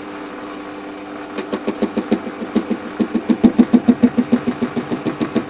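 Warco WM180 lathe running with a steady hum. About a second in, the turning tool starts an interrupted facing cut on a block spinning in the chuck, knocking at each revolution at about seven sharp clacks a second, which grow louder as the cut goes on.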